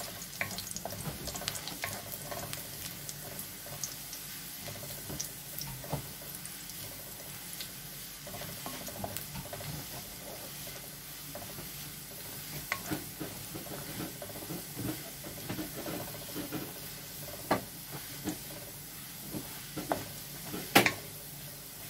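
Chopped garlic sizzling softly in oil in an aluminium wok while a wooden spatula stirs it, scraping and tapping against the pan. There are a few sharper knocks of the spatula in the second half.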